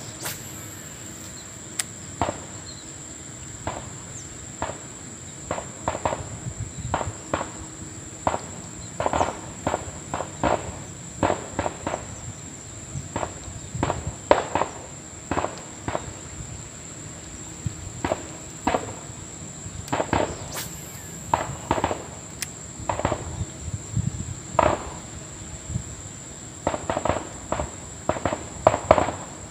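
Irregular short clicks and ticks, one or two a second and sometimes in quick bunches, as a topwater walking lure is twitched and reeled back across a shallow ditch. A steady high-pitched whine runs underneath.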